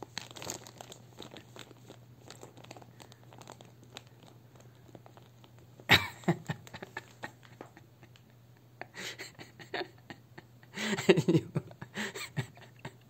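Plastic crisp bag crinkling and rustling as a cat rummages inside it with its head, with crunching of crisps mixed in. A sharp loud rustle comes about six seconds in and a burst of loud crinkling around eleven seconds.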